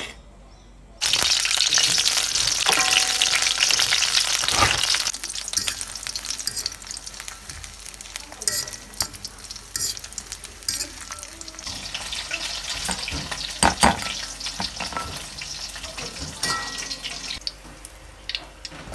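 Crinkle-cut french fries sizzling in hot oil in a steel wok. The sizzle starts suddenly about a second in and is loudest for the first few seconds, then settles to a quieter sizzle. A metal spatula stirring the fries clicks and scrapes against the wok throughout.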